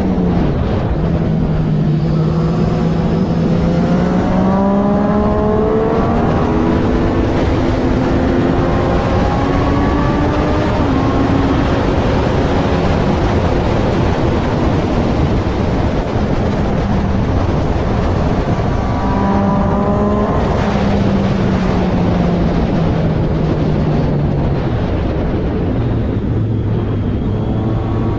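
Triumph Daytona 675R's inline-three engine at racing speed, its pitch climbing in steps through the gears for the first several seconds, then held high. About two-thirds of the way in it drops as the bike slows and shifts down, then rises again near the end, over a constant rush of noise.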